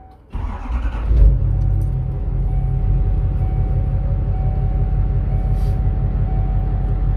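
A 2000 Hummer H1's 6.5-litre V8 diesel is cranked by the starter for about a second, catches, and then idles steadily.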